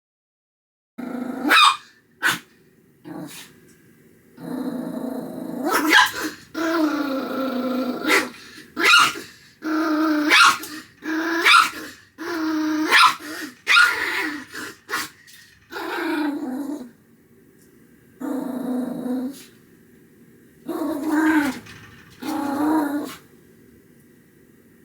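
Toy poodle growling and barking in repeated bouts: two short sharp barks near the start, then a string of longer growling barks with short pauses between them.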